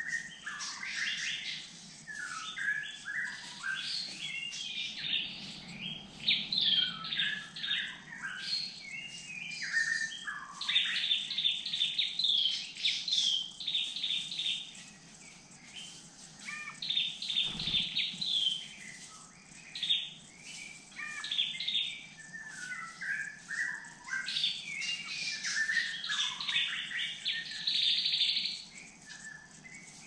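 Several forest birds calling and singing at once. Quick runs of high repeated notes overlap with lower slurred whistles, and a Dark-necked Tailorbird's call is among them.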